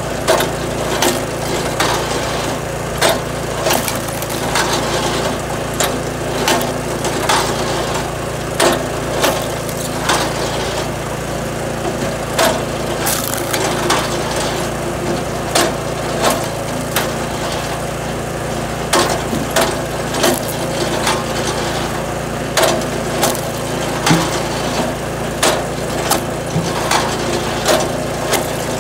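Firewood being split on a powered log splitter: the splitter's motor hums steadily while wood cracks and clatters sharply about once a second as the pieces split apart and are knocked off the table.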